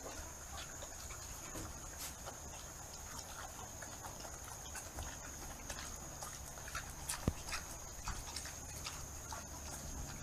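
A pig moving about in its pen bedding: faint scattered rustles and small clicks, one sharper click about seven seconds in, over a steady faint high whine.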